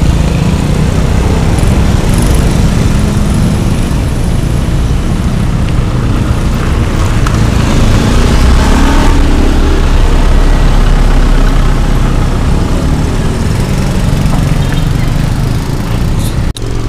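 Road traffic: motorcycle and car engines running on the street close by, a loud steady noise that swells around the middle as a vehicle passes.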